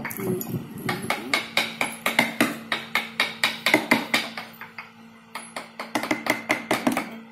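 A mallet tapping a carving chisel into wood in quick, regular strokes, about four a second, each with a short metallic ring. The tapping pauses briefly about five seconds in, then resumes.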